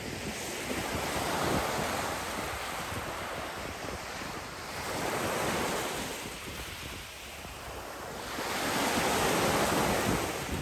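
Small sea waves breaking and washing up a pebble beach. Three surges about four seconds apart, each a rush of surf that swells and fades.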